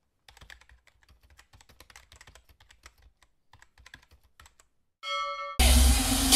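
Rapid computer-keyboard typing clicks for about four and a half seconds, a typing sound effect for an animated title, then a short bell-like ding. Loud music cuts in suddenly near the end.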